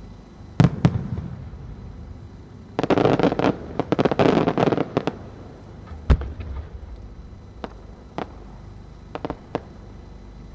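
Aerial fireworks going off. There are two sharp bangs under a second in, then about two seconds of dense rapid crackling, another sharp bang with a low rumble about six seconds in, and a few scattered pops near the end.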